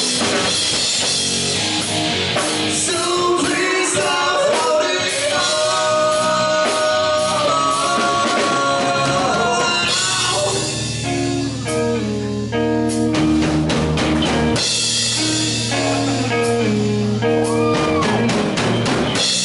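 Live rock band playing: electric guitars, bass guitar and drum kit, with a man singing into a microphone. About halfway through the low end grows heavier, with sustained low chords and drum hits.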